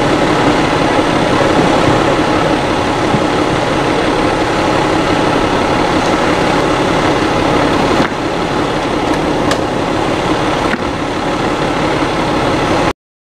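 Fire engine's diesel engine idling steadily, with a slight drop in level partway through; it cuts off abruptly near the end.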